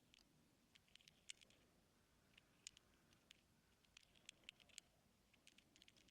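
Ear-cleaning tool working inside an ear canal close to the microphone: faint, irregular clusters of tiny clicks and scratches.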